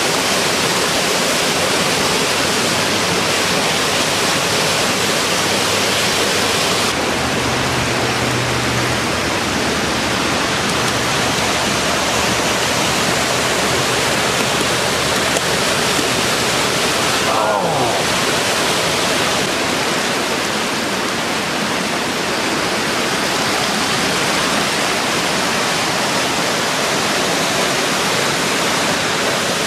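Fast floodwater rushing steadily through a river standing wave.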